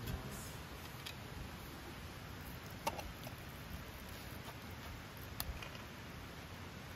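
Knife and fork clinking against a cast-iron steak plate while steak is cut, a few light clicks with the sharpest about three seconds in, over a faint steady hiss.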